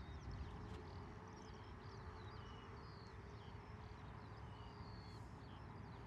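Faint outdoor ambience: birds chirping and singing in quick, short, high whistles, over a steady low rumble and a faint steady hum.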